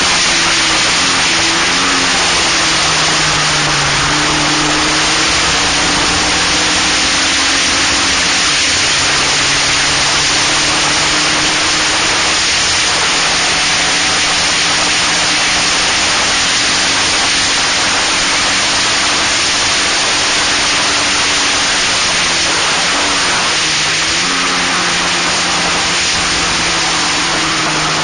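Wind rushing over an action camera's microphone on a Locost racing car at speed, with the car's engine running steadily underneath; the engine note shifts briefly a few times.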